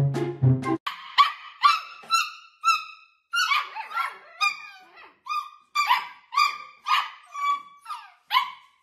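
A litter of fluffy white Samoyed puppies yipping and barking together in short, high calls, about two a second, each call dropping in pitch.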